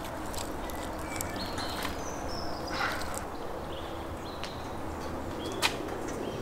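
Outdoor ambience with birds chirping now and then over a steady low background, with light clicks of the fish and salt crust being handled and one sharp click near the end.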